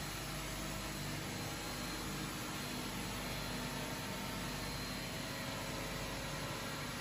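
Steady running noise of a steel pipe mill's roll-forming line: an even hiss over a low hum, with a few faint steady tones and no distinct knocks.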